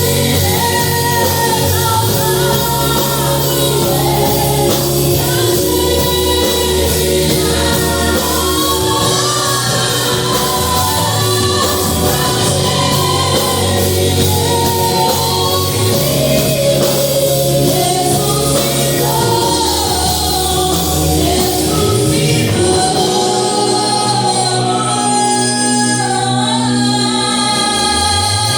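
A song with singing voices over a sustained bass line.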